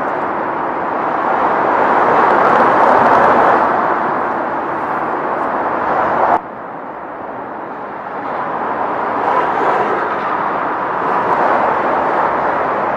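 Road traffic on an overhead roadway: a steady noise of passing vehicles that swells and fades. It drops off abruptly about six seconds in, then builds up again.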